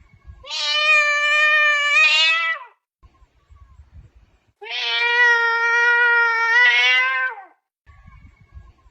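Two long, drawn-out cat meows. Each holds a steady pitch, the second slightly lower than the first, and both bend up and then fall away at the end.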